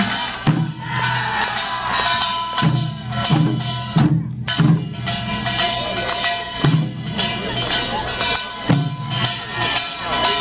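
Korean pungmul folk band playing: drums beating heavy strokes under a dense wash of ringing gongs. There is a brief dip about four seconds in.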